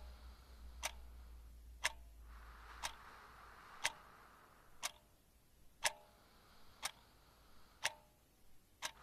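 Analog wall clock ticking, one sharp tick about every second.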